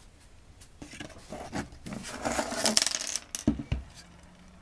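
Hard objects being handled, with clattering and scraping for a couple of seconds, then two sharp knocks as something is set down.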